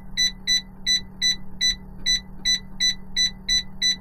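Air fryer's touch control panel beeping once with each press of the temperature-down button, about a dozen short high beeps at roughly three a second as the setting steps down five degrees at a time. A steady low hum runs underneath.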